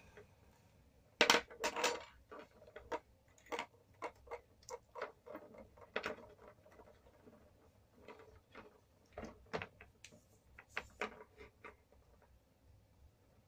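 Irregular small clicks and taps of a plastic MC4 solar-cable connector being handled and its parts pushed together on the cable, the loudest couple about a second in.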